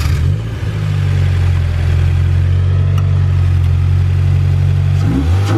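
Car engine catching right after being started and settling into a loud, steady idle, then revving up briefly near the end.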